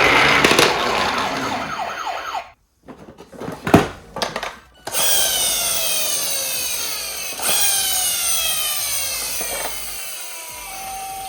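Toy emergency vehicle sounds. A loud noisy whirring stretch stops about two and a half seconds in. After a pause with a single click, a whine that falls in pitch repeats about three times, each lasting some two seconds.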